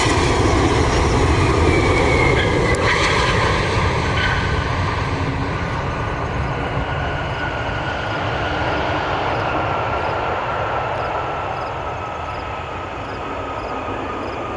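Boeing 777 twin-engine jet landing: the engine whine drops in pitch as it passes, then its steady engine noise slowly fades as it rolls out down the runway.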